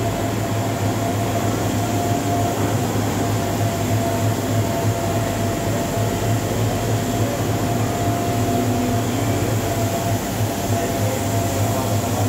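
Steady electrical machinery hum in a locomotive shed, a low drone with a thin steady whine held above it, from the overhead cranes and shed equipment.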